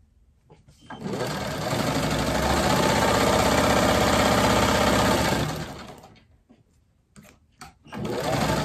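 Vintage black sewing machine running steadily for about five seconds as fabric strips are stitched, then slowing to a stop. After a few clicks of handling, it runs again briefly near the end.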